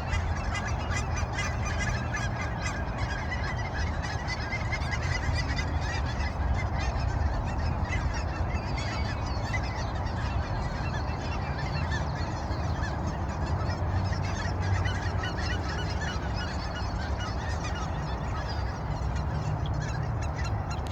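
A flock of Canada geese honking continuously, many short calls overlapping into a steady chorus, over a low steady rumble.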